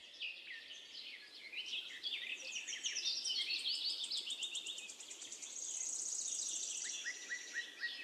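Small birds chirping and twittering in quick, overlapping calls, with a fast, high trill lasting about a second and a half in the second half.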